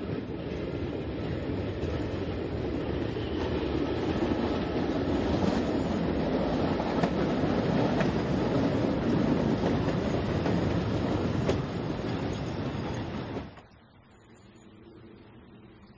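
Preserved SNCV metre-gauge railcar AR 133, powered by a diesel engine salvaged from a WWII Sherman tank, running toward the listener and growing louder as it approaches, with a few clicks from the wheels on the rails. The sound cuts off suddenly near the end, leaving faint outdoor ambience.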